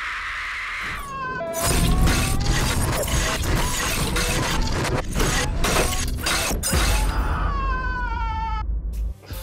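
A woman screaming twice, each scream falling in pitch, with a harsh, dense crashing and shattering noise full of sharp cracks between them; it all cuts off suddenly near the end.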